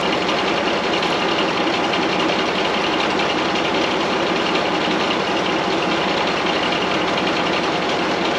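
Circle sawmill running steadily: its Kubota diesel power unit and spinning circular head saw make a loud, even mechanical noise.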